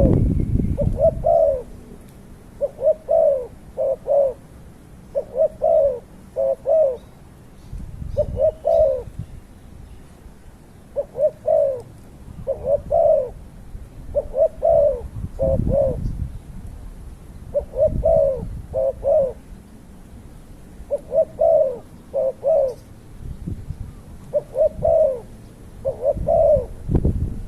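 A dove cooing over and over in short phrases of two or three notes, with occasional low rumbles underneath.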